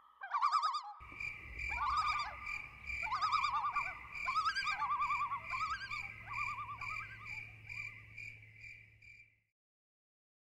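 A chorus of animal calls: repeated warbling calls that waver rapidly in pitch, joined about a second in by a steady, evenly pulsing chirp. The calls all cut off abruptly near the end.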